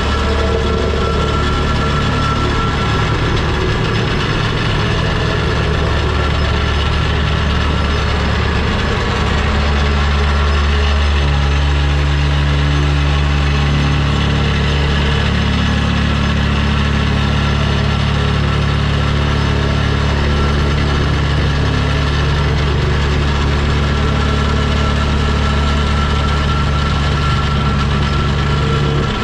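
Volvo 235EL excavator's diesel engine running steadily with a low drone. The hum steps up a little around ten seconds in.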